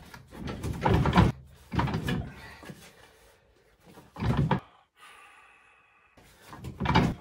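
Heavy metal parts knocking and clunking in short bursts, four or so spread over a few seconds, as a motorcycle engine and gearbox are worked into a steel tube frame.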